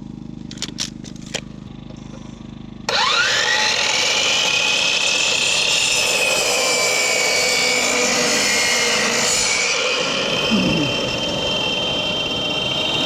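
A power saw starts about three seconds in, its motor whine rising quickly, then runs steadily as it cuts into wet lumber. Near the end the pitch sags under load for a few seconds and then recovers. Before it starts there is a low hum and a few sharp clicks.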